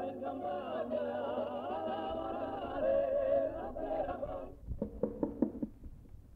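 Soundtrack music with singing voices carrying a melody, which stops about four and a half seconds in. A quick run of about five short, sharp strokes follows, then only a low hum.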